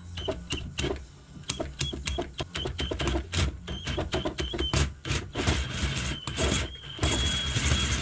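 Power drill boring out a plastic pipe fitting with a 7/8-inch spade bit: the bit catches and chatters in the plastic in quick, uneven rattles. The motor whines in short bursts at first, then runs more steadily from about halfway.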